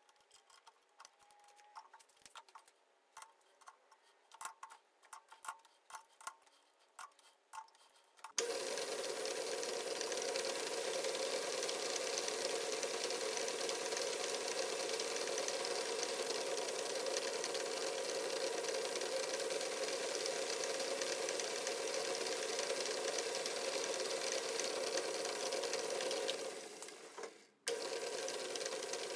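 A few faint clicks, then about eight seconds in a metal lathe starts up and runs steadily, turning down a plastic part. The running noise drops out briefly near the end and comes straight back.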